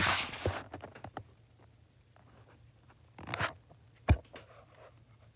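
Handling noises from a phone and its new screen protector: a rubbing scrape that fades over the first second, another short scrape a little past three seconds, and a sharp knock about four seconds in.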